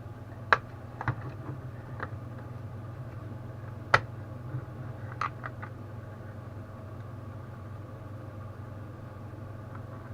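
A steady low hum with a handful of short, sharp clicks and taps in the first half, the loudest about half a second and four seconds in: small parts of a power bank and tools being handled on a workbench.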